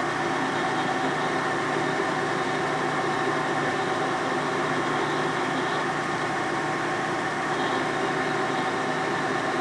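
A machine-tool motor running steadily at constant speed, a smooth, even hum with no change in pitch.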